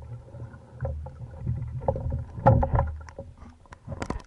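Underwater sound of a diver swimming up toward the surface: a low rushing of water against the camera with scattered clicks and knocks, loudest about two and a half seconds in. It cuts off suddenly at the end.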